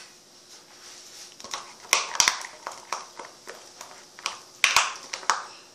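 Slime in a plastic cup being mixed with activator: a run of sharp, sticky clicks and taps, loudest about two seconds in and again near the end.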